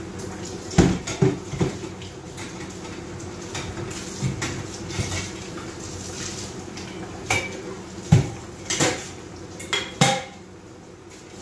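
Metal pots, bowls and cutlery clattering and clinking as they are handled at a kitchen sink: a cluster of sharp knocks about a second in, then another run of knocks in the second half, over a steady low hum.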